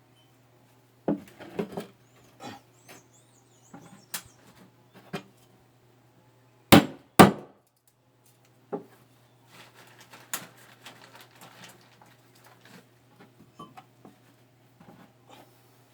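Wood being hammered and knocked: irregular knocks and lighter taps, with two loud blows in quick succession about seven seconds in.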